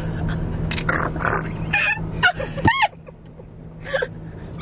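Women's wordless reactions to a shot of harsh liquor: gasps and breathy exhales, then a short squeal that rises and falls a little under three seconds in. A steady low hum of the car interior runs underneath.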